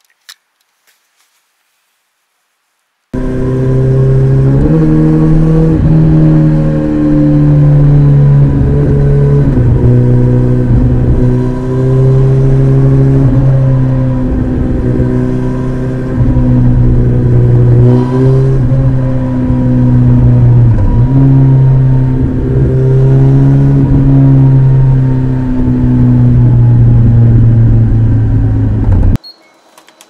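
Kawasaki ZX-14R's inline-four engine with an Akrapovic exhaust running hard and steady, its note stepping up and down a little every few seconds. It starts abruptly about three seconds in, after near silence with a few faint clicks, and cuts off just before the end.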